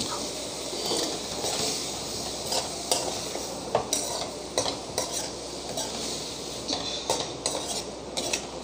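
Steel spoon stirring and scraping cauliflower around a kadai, clinking against the pan at irregular moments, over a steady sizzle from the spiced cauliflower frying in hot oil just wetted with a little water.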